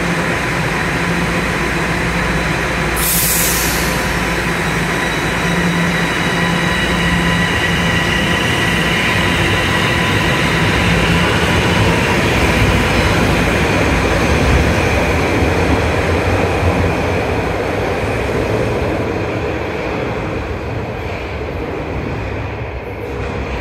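Bombardier Toronto Rocket subway train pulling out of an underground station. A short hiss comes about three seconds in, then an electric whine rises with the wheel and running noise as the train accelerates away. The sound fades over the last few seconds.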